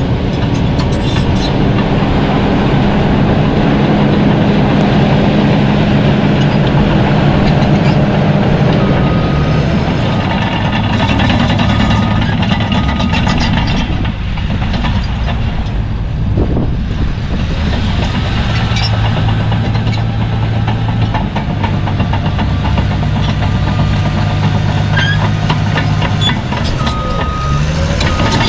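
Caterpillar D6N crawler dozer pushing Type 1 crushed stone: its diesel engine running under load with track clatter, the engine note shifting and easing off briefly around the middle before picking up again.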